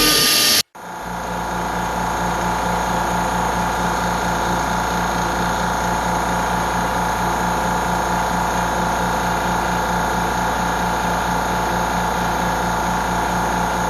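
CNC milling machine running steadily, with a constant whine over a low hum that pulses quickly and evenly.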